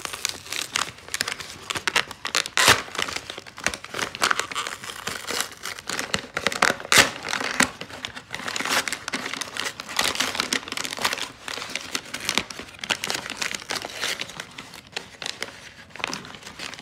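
Brown kraft-paper mailer envelope being crumpled and torn open by hand: continuous irregular crackling and rustling of paper, with louder crackles about three and seven seconds in.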